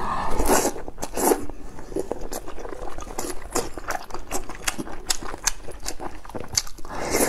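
Close-up eating sounds: slurping rice noodles at the start, then chewing with many small wet mouth clicks, and another noisy slurp near the end.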